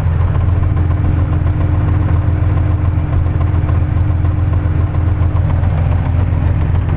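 Cammed Hyundai Tiburon engine idling with a steady low rumble, the hood rattling against its vibration.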